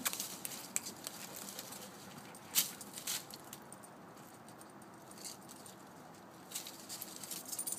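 A puppy chewing and tugging at a knitted rug among dry leaves, making scattered soft rustles and small clicks. The sounds grow a little busier near the end.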